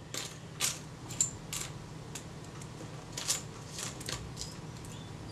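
Small metal screws and camera parts clicking and clinking in a plastic parts tray as fingers sort through them for screws: a scatter of light, irregular clicks over a faint steady low hum.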